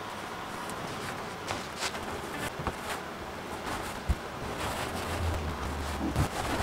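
A small foam paint roller rolling two-part polyurethane onto a Dacron boat skin stretched over a wooden frame, a soft rasping with occasional light knocks and a brief low hum near the end.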